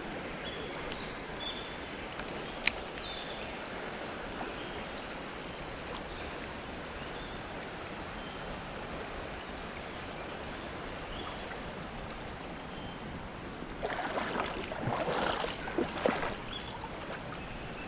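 Creek water running steadily, with short high bird chirps scattered over it. Near the end come a few louder, irregular sounds.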